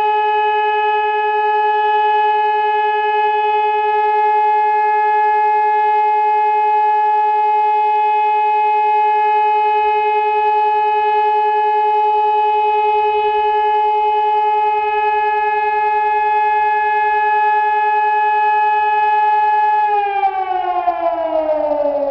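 Hörmann ECN electronic civil-defence siren sounding the German all-clear signal ("Entwarnung"): one steady, unbroken tone. Near the end the pitch falls away as the signal winds down.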